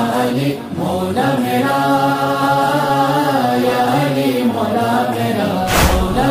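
Wordless vocal chanting of a noha: voices holding long, slowly sliding notes over a low hummed drone, with no instruments. A single deep thump lands near the end.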